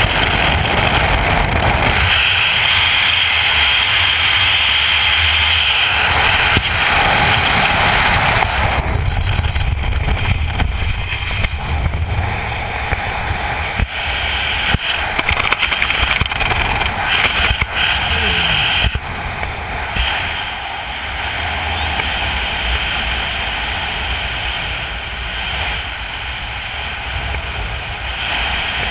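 Wind rushing over a skydiver's helmet-camera microphone in freefall, turning choppy and buffeting about a third of the way in, then settling into a quieter, steadier wind under the open parachute canopy for the last third.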